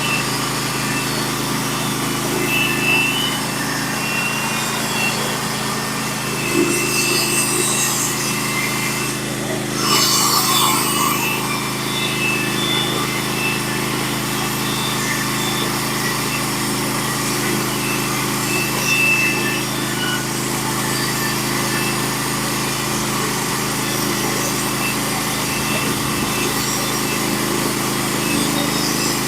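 Norwood HD36v2 portable bandsaw mill running steadily, its engine under load as the band blade cuts a board from a pitch pine log. The sound swells briefly twice, about seven and ten seconds in.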